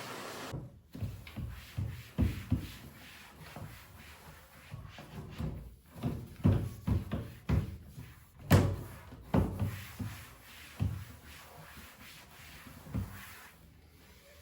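A run of irregular light knocks and thuds of household objects being handled and set down, loudest about eight and a half seconds in.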